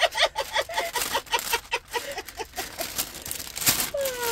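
A woman's cackling laughter, a quick run of short pitched bursts, over paper crinkling, ending in a drawn-out falling vocal tone near the end.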